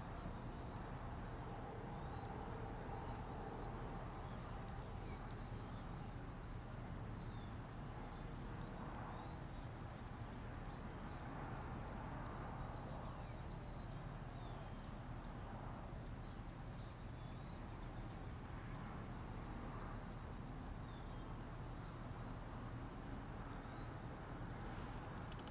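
Steady outdoor background noise with a low hum, and scattered faint high chirps of small birds.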